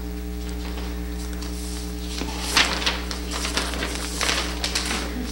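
Steady electrical mains hum. From about two seconds in, a run of irregular rustling and knocking movement noises.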